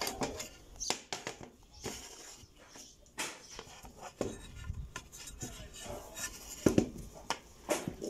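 Light clicks, taps and clatter of a steel washing-machine motor mounting plate being handled as small plastic glides are fitted onto it, with one sharper click late on.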